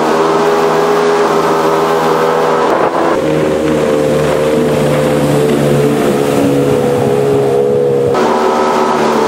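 Jet boat powered by a 200 hp Mercury Optimax two-stroke V6 running at speed, a loud steady engine note. The sound changes abruptly about three seconds in to a lower, fuller note as the boat is heard planing past, and switches back about eight seconds in.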